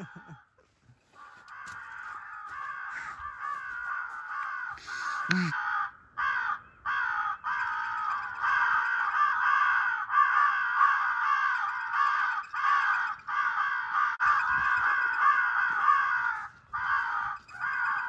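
Many crows cawing at once, their calls overlapping in a continuous chorus that starts about a second in.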